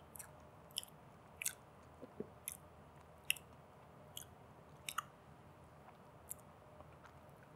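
Quiet eating sounds: a fork clicking and scraping on a plate as it cuts soufflé pancake, with chewing, about a dozen short irregular clicks.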